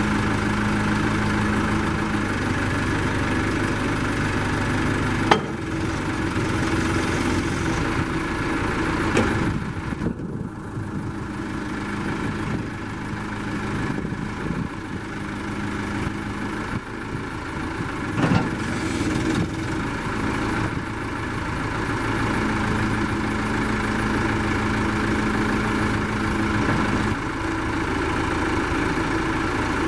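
John Deere 310C loader backhoe's four-cylinder diesel engine running at a steady idle. There is a sharp clack about five seconds in and a knock a little after eighteen seconds.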